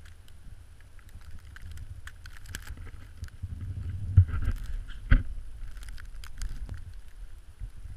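A Welsh corgi digging into a packed snow pillar: crunching, scratching snow, over a low steady rumble of wind on the microphone, with two sharp thumps about four and five seconds in.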